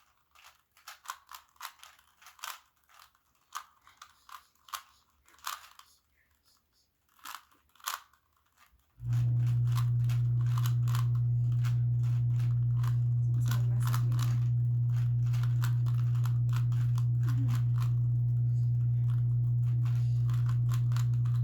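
Rubik's cubes being turned rapidly, a dense run of small plastic clicks and clacks. About nine seconds in, a loud steady low hum starts suddenly and carries on under the clicking.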